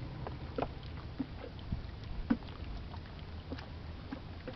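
Water lapping against a small wooden boat moored alongside a steel ship hull, a steady low wash with scattered light knocks and clicks.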